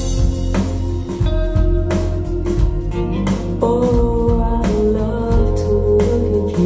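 A pop-soul song with guitar, bass, drums and a woman singing, played back through CSS Criton 1TDX DIY two-way bookshelf speakers and recorded in the listening room as a sound demo. A new held sung note comes in about halfway through.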